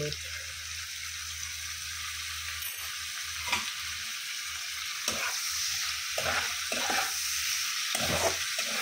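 Prawns and sliced onions sizzling steadily in hot oil in a kadai. From about the middle on, a metal spatula scrapes and stirs through them in short, repeated strokes.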